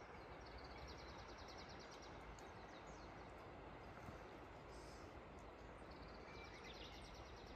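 Near silence: faint outdoor ambience, with a distant bird's faint, rapid high trill in the first couple of seconds and again near the end.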